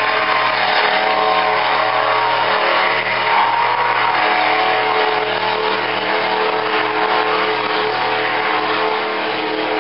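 Engines of two racing boats running flat out side by side: a loud, steady engine drone.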